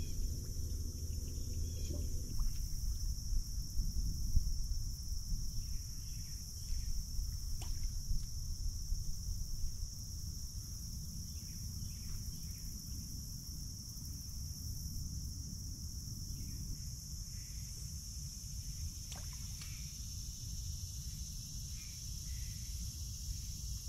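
A steady high-pitched chorus of insects, with low wind rumble on the microphone. A low steady hum cuts off about two seconds in.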